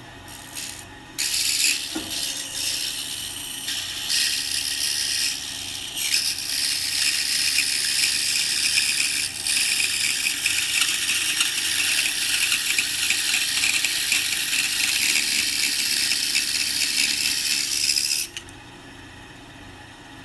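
Bandsaw cutting through the thick wooden back of a box: the blade's steady hiss in the wood starts about a second in and stops abruptly near the end as the cut finishes. The saw keeps running quietly after that.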